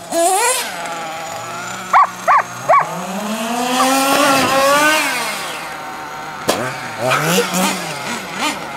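Small two-stroke engine of a radio-controlled car revving. There are three quick throttle blips, then a long climb in pitch as it accelerates away and fades, and a shorter rise and fall near the end.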